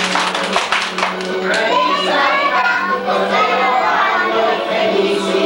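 Young children singing together as a group, with hand clapping in the first second or so.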